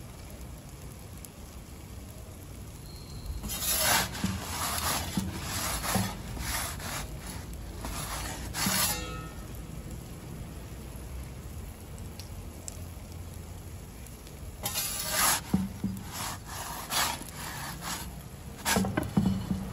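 Metal pizza peel scraping over the baking stone of a Dracarys Nero gas pizza oven as the pizza is turned and lifted. The scraping comes in bursts: a run of strokes from about four to nine seconds in, then again around fifteen seconds and near the end, over the steady low rush of the lit gas burners.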